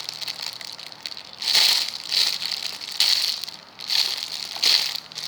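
Plastic packaging crinkling in about five short bursts as a squishy toy in its bag is handled.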